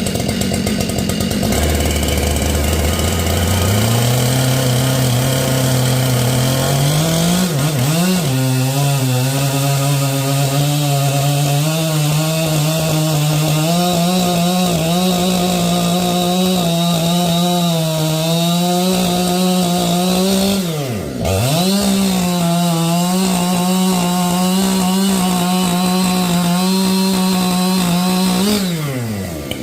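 Husqvarna 592XP two-stroke chainsaw revving up and cutting through a large seasoned ash log under load, the engine note wavering as the chain bites. The revs drop sharply once about two-thirds of the way through and pick straight back up, then fall away near the end as the cut finishes.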